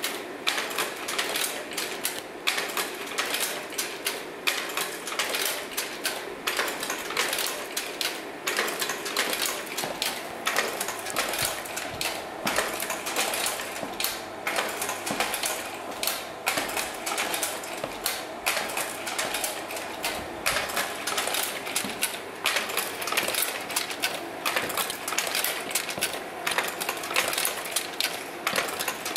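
Kodak Ektagraphic carousel slide projectors, driven by an Arduino, clicking and clacking through slide changes in quick succession, several clicks a second, over a faint low hum.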